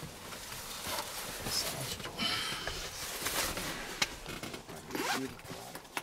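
Short irregular rustling and scraping noises, like clothing or a bag being handled, with faint voices near the end.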